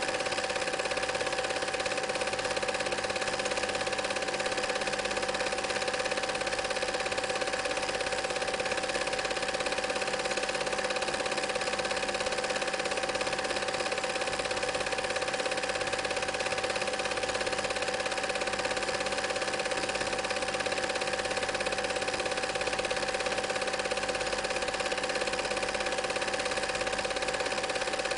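Film projector running steadily: an even mechanical whirr and clatter of the film-advance mechanism with a constant hum underneath, unchanging throughout.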